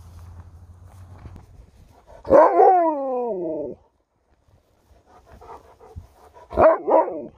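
Alaskan Malamute 'talking': one long woo-like call that slides down in pitch over about a second and a half. Near the end comes a shorter two-part yowl.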